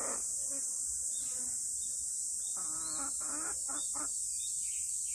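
Silkie chickens clucking, a few short calls bunched together in the middle, over a steady high-pitched hiss.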